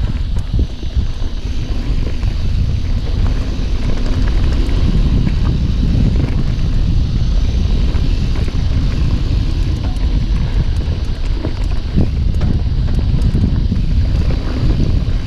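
Wind buffeting an action camera's microphone on a fast mountain-bike descent, mixed with the tyres rumbling over a dirt trail. Scattered knocks and rattles from the bike over bumps.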